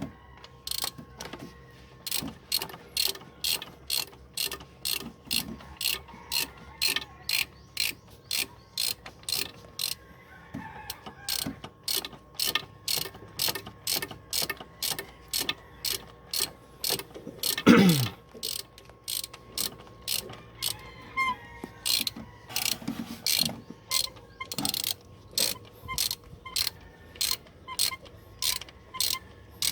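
Hand ratchet wrench clicking in a steady rhythm, about two clicks a second, as bolts on an engine are worked. About halfway through, a single loud sweep falls quickly in pitch.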